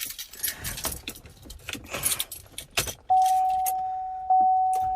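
Keys jangling and clicking for about three seconds, then the 2014 Chevrolet Silverado's warning chime dings twice, each a single tone that fades away.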